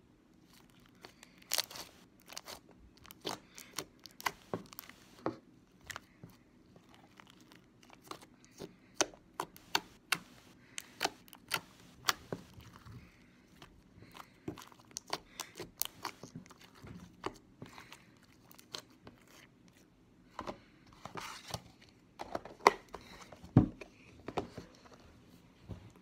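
Glitter slime being poked and squeezed by hand on a table, giving many irregular sharp pops and clicks as air trapped in it bursts.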